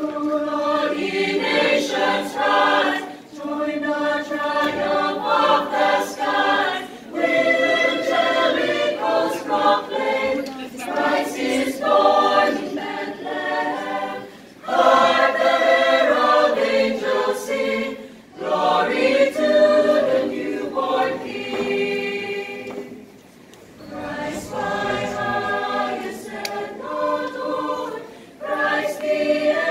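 Mixed choir of women's and men's voices singing a cappella in harmony, in sustained phrases broken by short breaths every few seconds.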